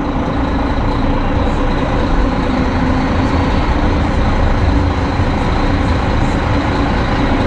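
Tour boat's engines running with a steady low rumble and a constant hum underneath.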